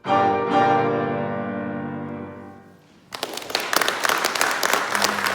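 Piano's closing chords, struck twice in quick succession and left to ring, fading away over about two and a half seconds. About three seconds in, audience applause breaks out.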